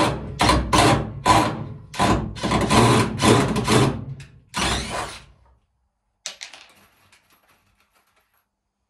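Cordless drill run in about nine short bursts into timber, working a screw hole in a wooden trough, for about five seconds. A few faint taps follow about a second later.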